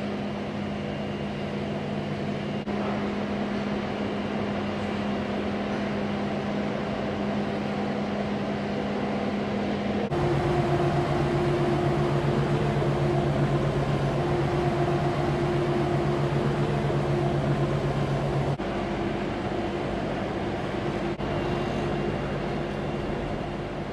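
Electric machinery of a tobacco-cutting line, with conveyor and gear motors, running with a steady hum. About ten seconds in, the hum switches to a lower, stronger tone.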